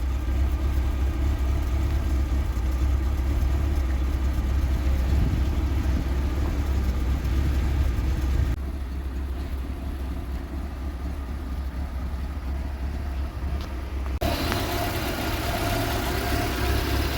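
Vauxhall Viva HC's 1256 cc four-cylinder engine idling steadily, its carburettor just leaned off to a blue flame, running smoothly ("purring like a baby pussycat"). The sound changes abruptly twice, about eight and a half and fourteen seconds in.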